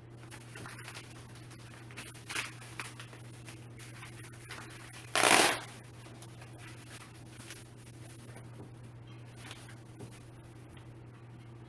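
Rustling and handling noises from unpacked chair parts and packaging, with one loud, brief rustle about five seconds in, over a steady low hum.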